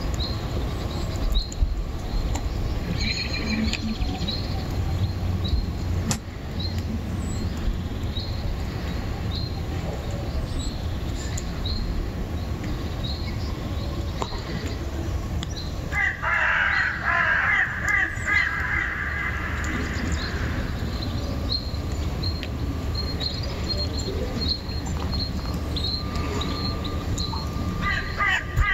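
Winter outdoor ambience: a steady low background rumble, with a small bird chirping about once a second. A crow caws in a run of calls for a few seconds a little past halfway, and again near the end.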